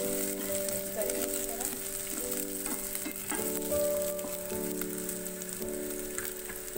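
Onions, garlic and nuts sizzling in hot oil in a pan over a high flame, stirred with a wooden spoon that scrapes against the pan now and then. Soft background music with held chords plays underneath.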